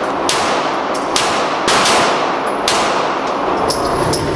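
A handgun fired about five times in quick, uneven succession, each sharp shot echoing off the walls of an indoor shooting range.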